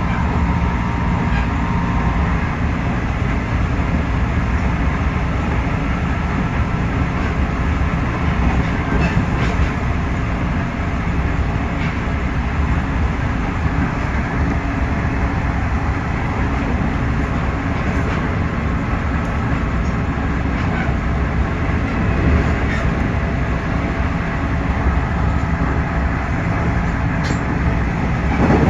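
JR Central 311 series electric multiple unit running at speed, heard from inside the car: a steady rumble of wheels on rail and running gear, with a few faint clicks along the way.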